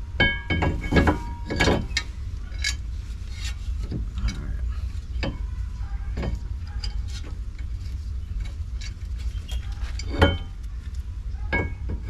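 Scattered metallic clicks and light knocks, a few with a brief ringing tone, from brake parts and tools being handled at a car's wheel hub.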